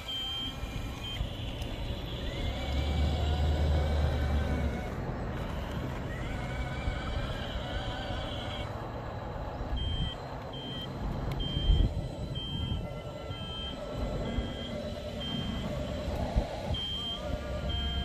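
Toy-scale RC Volvo EC160E excavator driving on its tracks over asphalt, its electric motors whining up and down as it moves. Its reversing alarm beeps steadily through the second half, and there is one sharp knock about two-thirds in.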